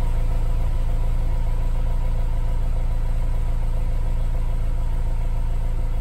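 Honda S2000's four-cylinder DOHC VTEC engine idling steadily at the exhaust tip, warmed up. The idle is smooth and even with no sputter or misfire, its valve clearances freshly adjusted.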